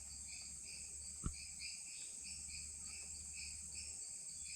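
Insects calling: a steady high buzz under a rhythmic chirping about four times a second, with a single soft knock about a second in.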